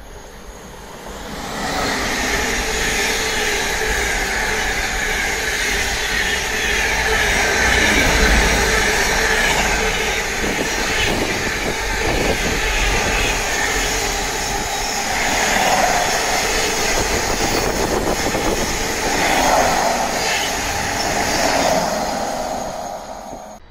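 Intermodal freight train rattling through the station at speed: a loud, continuous rush of wheels and wagons with a steady high tone over it and scattered clicks from the rail joints. It swells about a second and a half in and cuts off sharply near the end.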